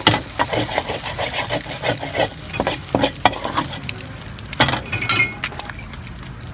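Metal spatula scraping and clinking over and over on a hot flat griddle, over a steady sizzle of frying oil.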